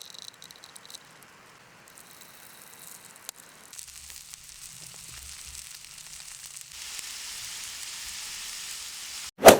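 Food frying in hot oil, sizzling with a steady hiss that grows louder in steps about a third and two thirds of the way through. It ends in a brief loud burst of noise and then cuts off.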